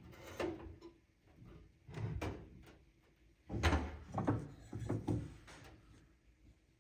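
Several clunks and scrapes of a metal paintless dent repair rod being worked into a car's trunk to reach a dent from behind. The loudest knock comes a little past halfway.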